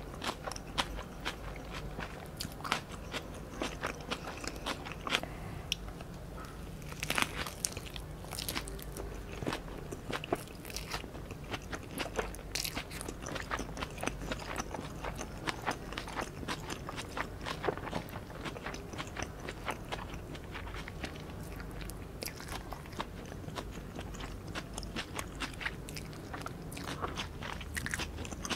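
Close-miked biting and chewing of a Vietnamese fresh spring roll (rice paper wrapped around crab stick, lettuce and rice vermicelli): a continuous, irregular run of small wet clicks and crunches.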